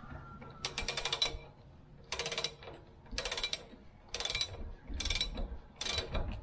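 Ratchet wrench tightening a lawn mower's flywheel nut: a short run of fast ratchet clicks on each swing of the handle, six times at roughly one-second intervals.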